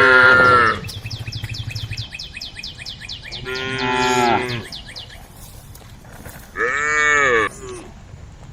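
Cows mooing: three long calls, one trailing off about a second in, another around the middle and a last one near the end that rises and falls in pitch. A fast, high ticking sounds between the first two calls.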